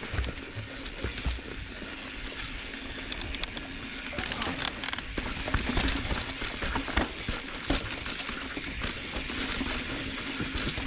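Mountain bike descending a rough dirt singletrack: tyres crunching over dirt, rocks and roots, with frequent knocks and rattles from the bike under a continuous low rumble.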